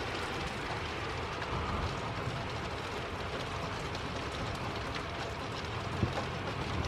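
Steady rain falling during a thunderstorm, with a continuous low rumble underneath and a single knock about six seconds in.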